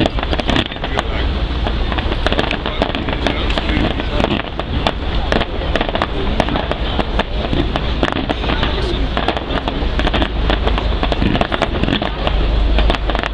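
Fireworks display going off: a dense run of overlapping bangs and crackles with no break, over a strong low rumble.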